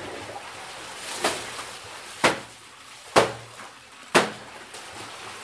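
Wet laundry being beaten by hand against a stone washing slab: four sharp slaps about a second apart, over a steady background hiss.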